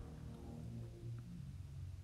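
Faint background music with soft, sustained low notes, the notes changing about a second and a half in.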